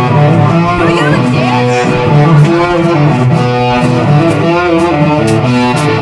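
Rock band playing an instrumental passage: electric guitar and bass over a steady drum beat, with a keyboard.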